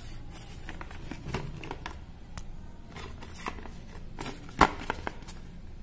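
Handling noise from a cardboard-backed glue blister card being turned over in the hand: faint scattered clicks and rustles, with one louder knock about four and a half seconds in.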